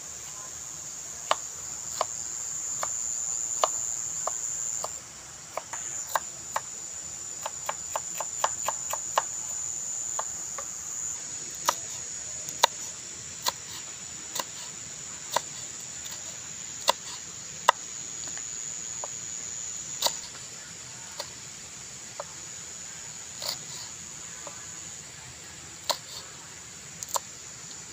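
Large knife chopping red chilies and shallots on a wooden cutting board: irregular sharp knocks, with a quick run of strokes around eight seconds in. Insects shrill steadily and high in the background.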